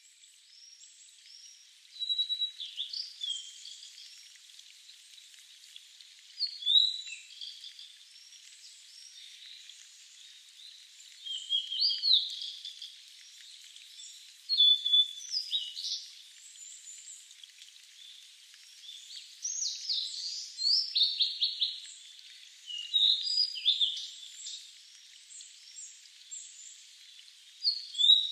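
Birds chirping in the distance: clusters of short rising and falling chirps and whistles every few seconds, over a faint steady hiss.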